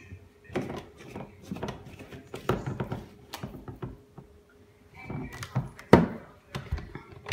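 Handling noise from a NutriBullet Rx blender cup and its plastic blade lid: irregular clicks, scrapes and knocks as the lid is screwed on and the cup is moved and set down, with one sharp knock about six seconds in.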